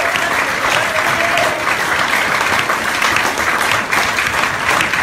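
Audience in a room applauding, many people clapping together.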